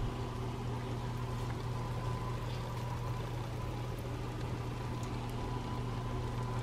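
Steady low hum with a faint hiss and a thin high tone: kitchen room noise, unchanging throughout.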